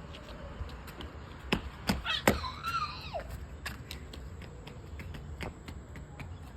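Steady low rumble of outdoor background noise, with three sharp pops or knocks between one and a half and two and a half seconds in and a short high squeal that drops in pitch as it ends.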